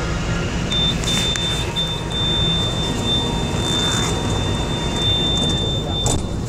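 MRT-3 train car: a low, steady rumble, with a single flat high electronic tone, like a warning buzzer, that comes in about a second in and holds on.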